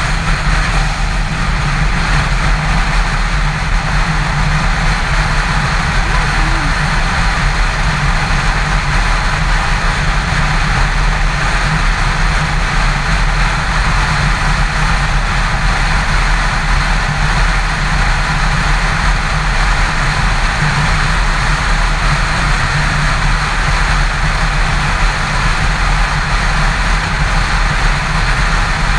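Yamaha FZ6's inline-four engine running steadily at highway cruising speed, under a constant rush of wind and road noise on the microphone.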